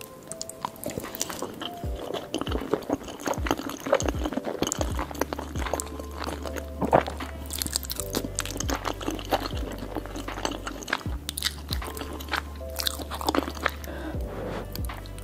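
Close-miked ASMR eating sounds of chewing and biting into cheesy baked pasta, many short wet clicks, over background music that gains a steady bass line about five seconds in.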